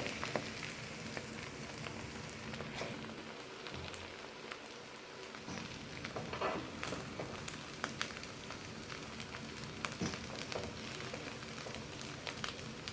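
Food sizzling in a hot pan: a steady crackling hiss with scattered small pops and ticks.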